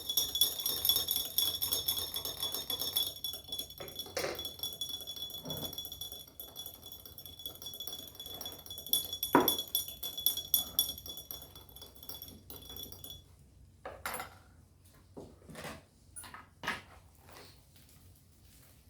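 A steady high-pitched ringing trill that cuts off suddenly about 13 seconds in, with scattered clinks and knocks of kitchenware, dishes and cutlery, throughout and after it.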